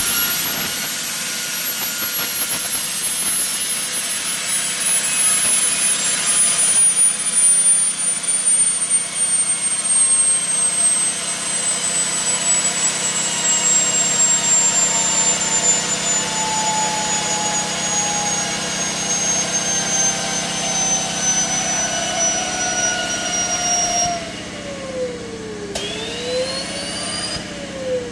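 Air-driven Tesla turbine and three-phase generator spinning at very high speed: a shrill whine over the hiss of compressed air, its pitch sliding slowly down as the turbine slows under the electrical load. Near the end the sound drops in level and the pitch falls quickly, then after a click it briefly climbs and sinks again, a disturbance the builder puts down to a short circuit in the generator wiring.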